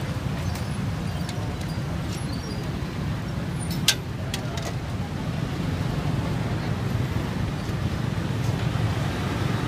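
Street ambience: a steady low rumble of traffic with faint voices in the background, and one sharp click about four seconds in.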